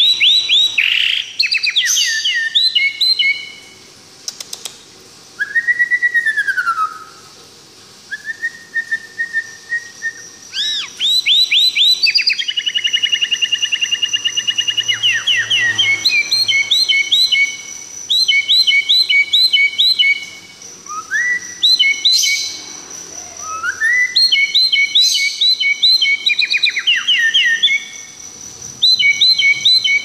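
White-rumped shama (murai batu) singing a long, varied song: fast runs of repeated chirping notes alternate with clear whistles, including one long held whistle and a falling slur, with brief pauses between phrases.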